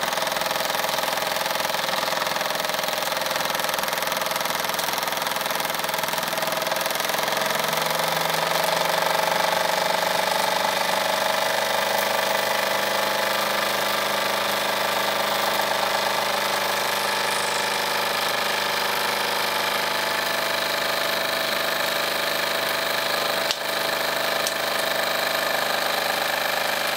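Wilesco D24 model steam engine running steadily under steam, running light with only a small M22 dynamo as load: a continuous fast mechanical running sound whose note shifts about eight seconds in.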